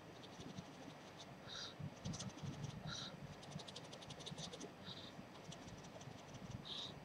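Faint, soft puffs of breath blown through pursed lips onto a strip of false eyelashes to dry the lash glue, about four puffs, with quick faint clicking and scratching from handling the lash strip in the middle.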